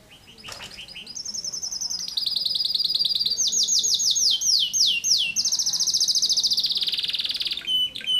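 Domestic canary singing a dense run of fast trills, each phrase a string of quickly repeated notes, one run falling in pitch note by note. The song starts softly and is loud after about two seconds; it ends with a few short high notes.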